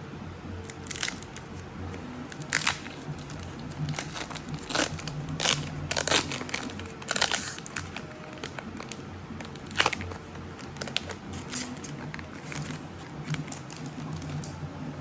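Foil booster-pack wrapper crinkling and tearing open, a string of irregular sharp crackles with the loudest ones a few seconds in and again about ten seconds in.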